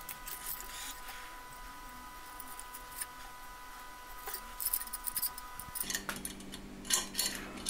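Light, scattered metallic clicks and rattles of steel spokes against an aluminium bicycle rim and hub flange as spokes are laced in and nipples fitted by hand, busier near the end as the hub is turned.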